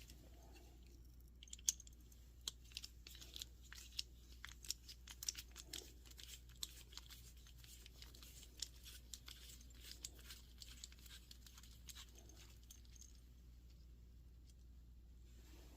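Faint, irregular light clicks and ticks of small screws and ratchet parts being handled, without a steady rhythm.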